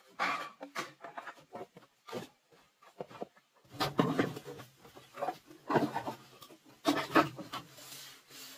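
Bamboo poles and dry leaves being handled on a bamboo platform: irregular knocks, scrapes and rustles, loudest in short bursts near the start and again about four, six and seven seconds in.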